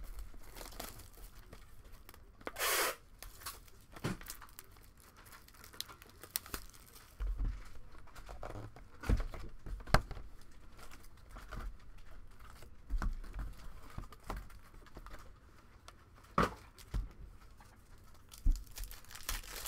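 Wrapping on a box of trading-card packs being torn open and crinkled, with a longer rip about three seconds in and scattered taps and knocks from handling.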